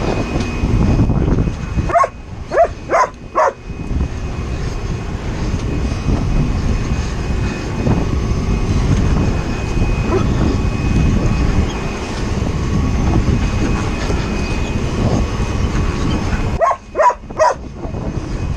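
Steady low rumble of wind and boat noise on the camera microphone, broken by a dog's short barks: four quick barks about two seconds in and three more near the end.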